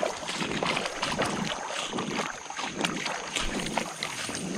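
Creek water splashing and moving in irregular small splashes, with wind buffeting the microphone.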